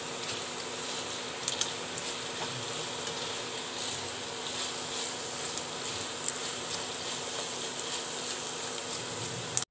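Tocino (sweet cured pork) sizzling steadily in hot oil in a nonstick wok, with a few sharp clicks of metal tongs against the pan as the pieces are turned.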